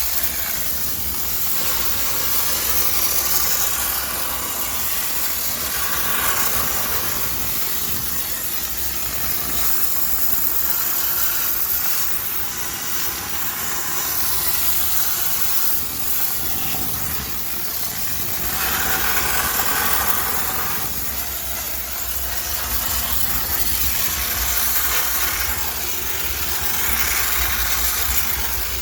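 High-pressure steam cleaner jetting steam into a washing machine to sterilize it: a continuous hiss that swells and eases every few seconds, over a steady low hum.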